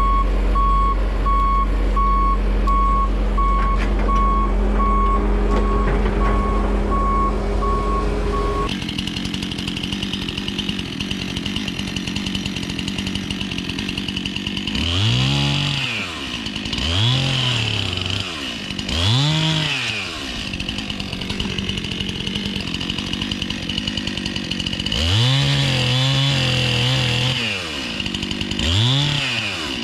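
Skid steer engine running with its reversing alarm beeping about twice a second. After a sudden change about nine seconds in, a chainsaw runs with a high whine and is revved up and down again and again, in two groups of revs.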